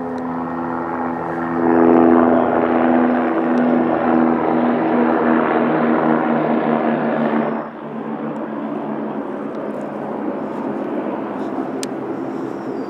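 A loud, steady engine drone with a low hum, growing louder about two seconds in and cutting off sharply near eight seconds, leaving a quieter steady rush.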